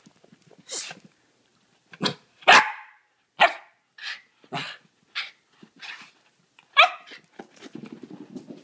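Dapple dachshund barking, a string of about eight barks roughly a second apart, the loudest about two and a half seconds in. Near the end, paws patter quickly across the floor.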